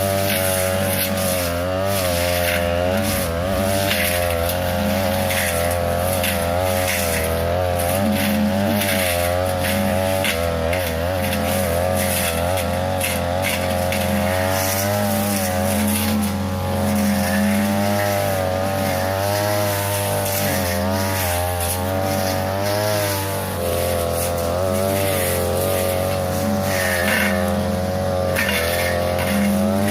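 A 42cc two-stroke brush cutter with a metal blade running at high revs, its pitch wavering up and down as the blade bites into tall grass and woody brush, with scattered short crackles from stems being cut.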